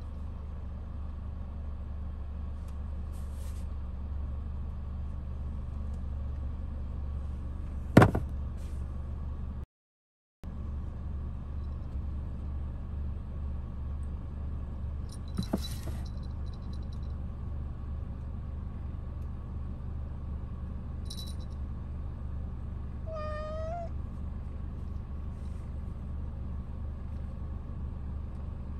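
A domestic cat gives one short meow that rises slightly at the end, over a steady low hum. A sharp knock comes about eight seconds in and a lighter click around fifteen seconds.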